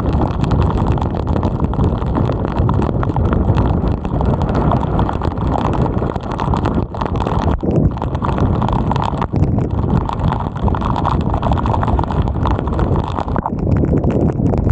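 Wind buffeting the microphones of a helmet-mounted 360 camera on a moving bicycle: a loud, steady rush with many small irregular taps and knocks running through it.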